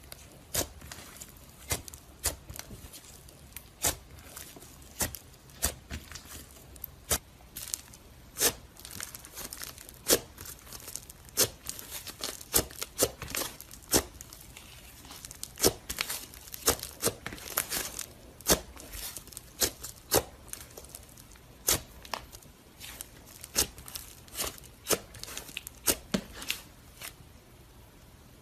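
Slime being squeezed and played with by hand, making irregular sharp pops and crackles, a few each second and thickest in the middle.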